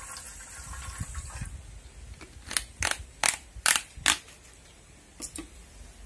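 Paint drier trickling from a small plastic bottle into a bowl of paint for about a second and a half, then five sharp plastic clicks a bit under half a second apart as the bottle's screw cap is turned back on, and two fainter clicks near the end.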